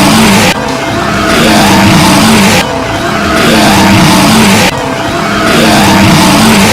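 A loud car engine sound with a wavering, rising and falling pitch and rushing noise, cut into sections that repeat about every two seconds with sudden drops in level.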